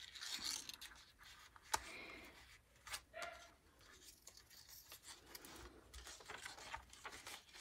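Faint rustling of paper and card pages being handled and turned in a handmade junk journal, with a few light taps and clicks.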